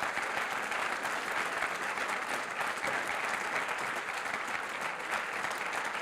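Lecture-hall audience applauding steadily after a talk ends.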